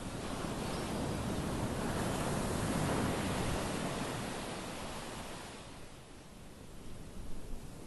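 Ocean surf: a wave breaks and washes up the beach, swelling to its loudest about three seconds in, then draining away.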